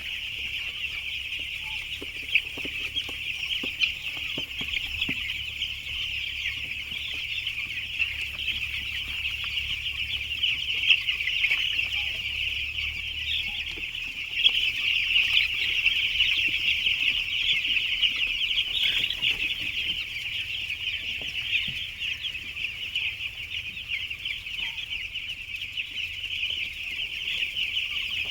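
A large flock of 11-day-old chicks peeping continuously, a dense unbroken chorus of high-pitched cheeps, over a faint low steady hum.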